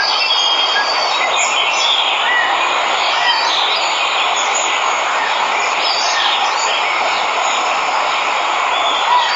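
Steady rush of a waterfall, with birds chirping and whistling over it.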